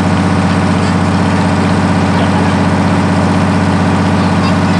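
Engine of a river tour boat running steadily: a low, even hum that holds the same pitch throughout.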